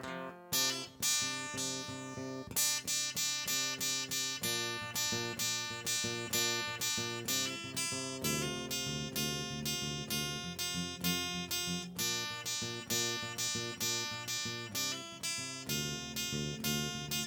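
Acoustic guitar played solo, chords strummed and picked in a steady rhythm, several strokes a second.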